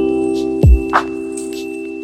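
Background music: sustained bell-like chords over a beat, with a deep kick drum hit a little over half a second in and a short cymbal tick near the middle.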